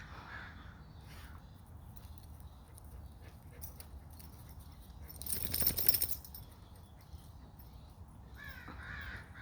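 Crows cawing near the start and again near the end, with a brief, loud rush of noise about five seconds in.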